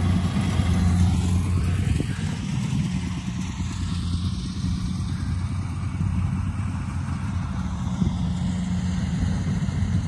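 Engine of a combine rice harvester running steadily at an even speed: a strong low hum with a dense mechanical rush over it.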